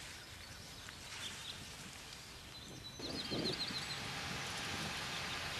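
Faint outdoor ambience with a small songbird calling: a couple of high chirps about a second in, then a quick run of repeated high notes about three seconds in, as the background noise grows slightly louder.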